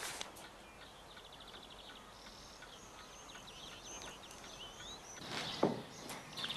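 Small birds chirping faintly, with a rapid trill, starting about two seconds in. Near the end comes a single sharp knock, the loudest sound.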